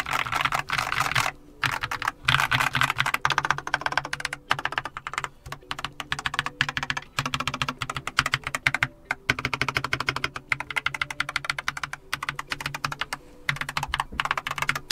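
Fast typing on a Keychron K8 QMK tenkeyless mechanical keyboard with Keychron Super Banana tactile switches: a dense run of key clicks, broken by a few short pauses. The keyboard sounds hollow.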